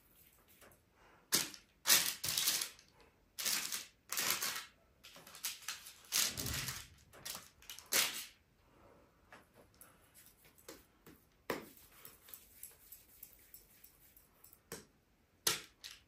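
Irregular rustles, crinkles and light knocks from hands shaping dough balls and setting them on paper-lined metal baking trays, busiest in the first half with a few more toward the end.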